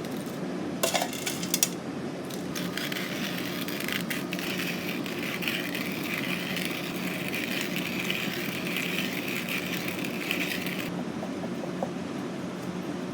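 A few clinks of dishes or cutlery, then an even hiss lasting about eight seconds that stops abruptly, over a steady low hum.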